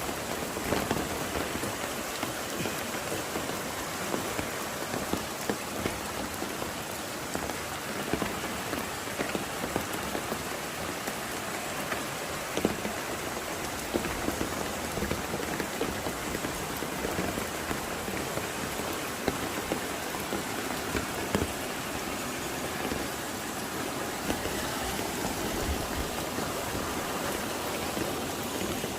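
Steady rain falling, with frequent sharp taps of individual drops on a nearby surface.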